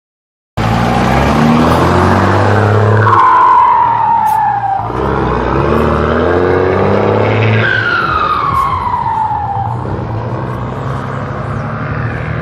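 A motor vehicle's engine running hard and loud, revved twice. Each time the revs drop, a high whine slides down in pitch over about two seconds.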